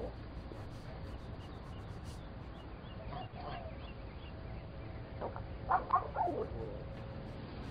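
A small dog barking: a single short call a little after three seconds in, then a quick run of four or five louder barks about five to six and a half seconds in, the last ones falling in pitch. A steady low hiss runs underneath.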